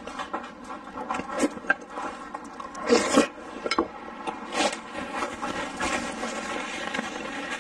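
Close-miked eating sounds: noodles slurped and chewed, with irregular wet mouth noises and puffs of breath through pursed lips, and a paper tissue rustling near the end.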